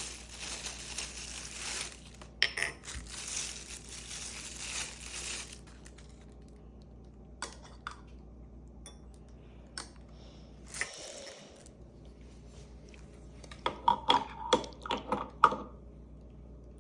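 Rustling of packaging for several seconds, then scattered light clicks and, near the end, a quick run of clicks and clatters as small hard plastic and metal coffee-maker parts are handled and set down.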